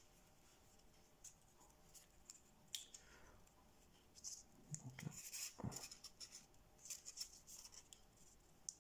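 Faint crinkling and crackling of thin kami origami paper being pinched and folded between fingertips: a scatter of small dry ticks, busiest in the middle, with one soft bump about halfway through.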